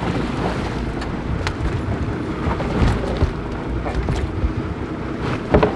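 Steady wind and sea noise on an open fishing boat, with a few sharp knocks as a yellowfin tuna is brought onto the deck.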